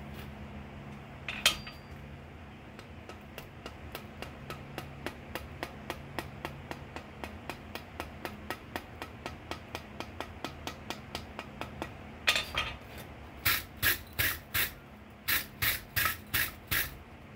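A blacksmith's hammer on hot steel over an anvil: one hard blow, then a long run of light, quick taps, about four a second. After the taps come about a dozen rasping strokes of a handled wire brush scrubbing scale off the hot piece, with the forge blower humming low underneath.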